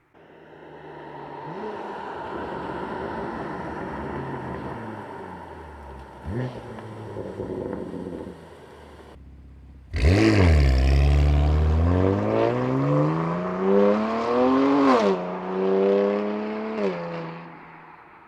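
BMW M2 Competition's S55 twin-turbo straight-six through an equal-length mid pipe and Milltek cat-back exhaust. It runs with a quick blip about six seconds in. After a short gap it flares up loud at about ten seconds, then revs climb and fall twice, the second rev shorter, before settling back.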